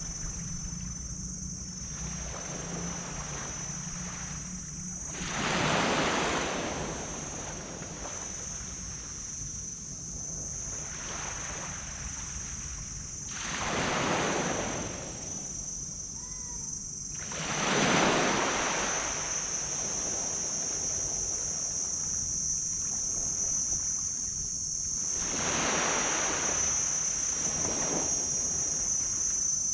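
Gentle tropical waves breaking on a sand beach: a steady wash of surf, with four separate waves swelling up and breaking several seconds apart.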